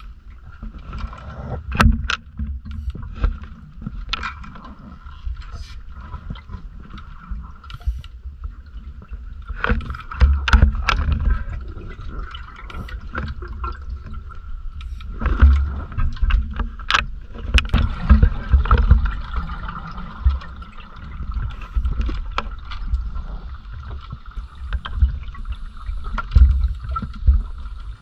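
Underwater scuba-diving sound heard through a camera housing: low rumbling water movement swelling and easing, with scattered sharp clicks and knocks from dive gear and a faint high hum that comes and goes.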